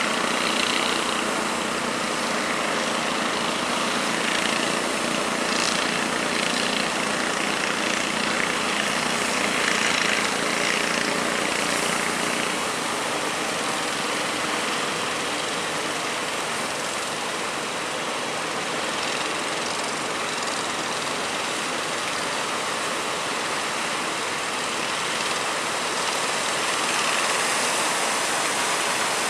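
Steady engine drone under a constant rush of wind and sea water, typical of a small boat running in rough weather.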